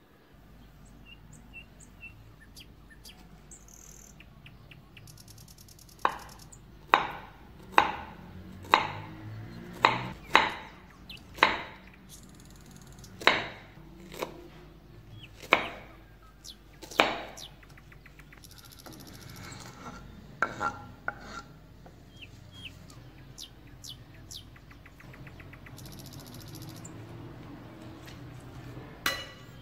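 A kitchen knife slicing strawberries on a wooden cutting board, each cut ending in a sharp knock of the blade on the board, about a dozen knocks roughly a second apart. These are followed by quieter handling sounds.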